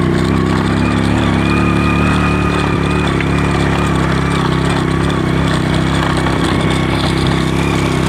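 Old Honda Astrea Grand motorcycle's small single-cylinder four-stroke engine running steadily under load, climbing a rocky stone track.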